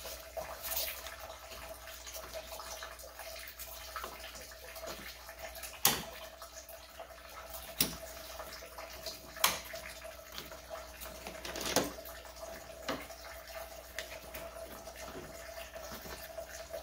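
Sharp plastic clicks and knocks as the W210's front grille is unclipped with quarter-turn fasteners and lifted off, over a steady trickle of coolant draining from the radiator into a pan.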